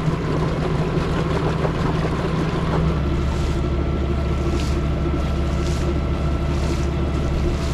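Contessa 35 sailboat's inboard diesel engine running steadily under way, with wind and water noise over it. Its note changes about three seconds in.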